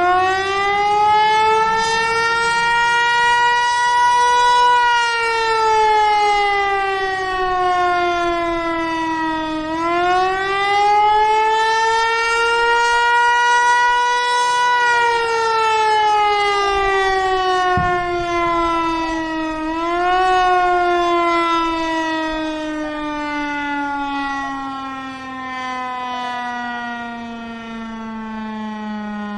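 Federal Signal Eclipse 8 electronic outdoor warning siren sounding a wail, the rising-and-falling Attack signal. Its pitch climbs and falls about every ten seconds; after a short rise about twenty seconds in, the pitch slides down slowly and the level drops.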